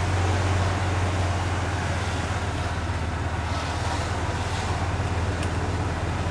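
Golf cart running as it drives along at a steady speed, giving a steady low hum with a constant rushing noise over it.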